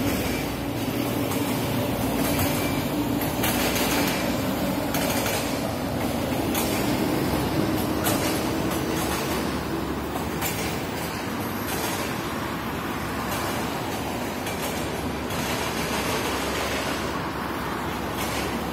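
City road traffic: a steady hum of passing cars, buses and scooters, with a low steady tone that fades out about halfway through.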